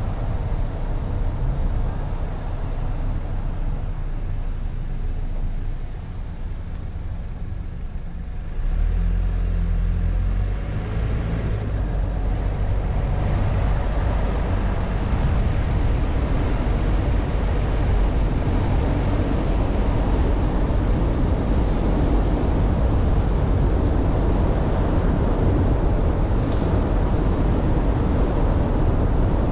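Car driving on a paved road: steady low engine and road rumble with wind noise, getting louder about a third of the way in and staying there.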